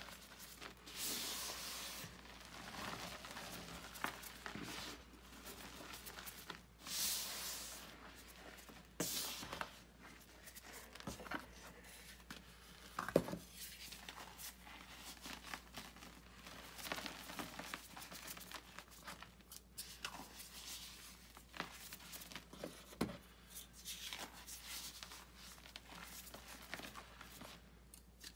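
Hands rubbing, squeezing and sifting powdered gym chalk in a bucket: soft crunching and hissing swishes of powder as it is worked and falls through the fingers, with a couple of sharp clicks midway.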